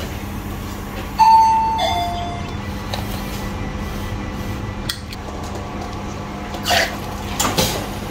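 Two-note descending electronic door chime about a second in: a higher note, then a lower one that fades, like a shop's entry ding-dong. It sounds over a steady low hum, with a few short rustling knocks near the end.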